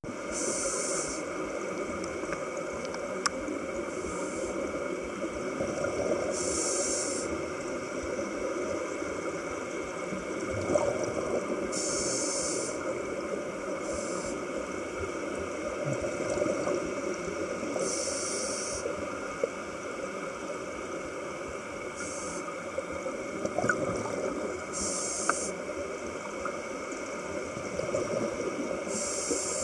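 Gas bubbling out of a shallow-sea hydrothermal vent, heard underwater as a steady rush of rising bubbles. Brief higher hisses come back every few seconds, and there are a few sharp clicks.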